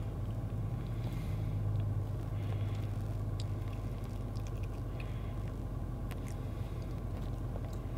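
Car idling, heard from inside the cabin as a steady low hum, with a few faint clicks.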